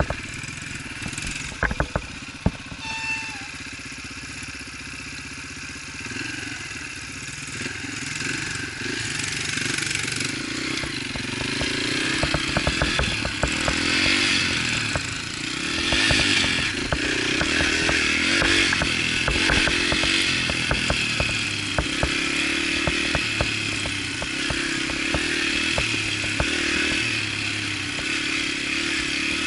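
Small single-cylinder four-stroke dirt bike engine running on a trail ride, quieter at first, then louder with the revs rising and falling from about ten seconds in, with scattered sharp knocks and rattles.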